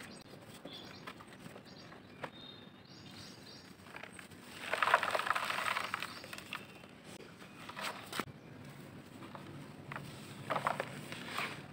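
Dry grey gritty lumps crumbled by hand in a plastic bucket. A loud spell of crunching with grit pouring down comes about halfway through, with a few sharp ticks before and after and short crumbly crackles near the end.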